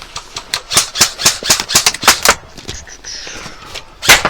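Airsoft gun firing a quick string of sharp pops, about four a second, for a couple of seconds, then one louder pop near the end.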